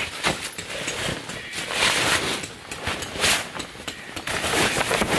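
Heavy canvas and vinyl rustling and scraping as a rolled swag is handled and pulled from its canvas bag, in repeated swelling bursts.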